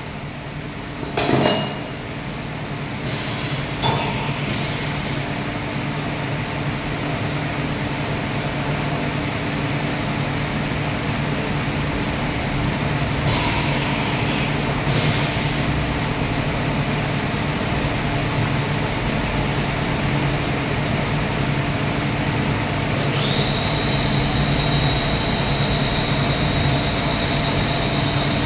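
Steady mechanical hum of a CNC vertical machining centre running, with a few metal clinks near the start as a workpiece is handled inside the open machine. A steady high whine comes in about two-thirds of the way through.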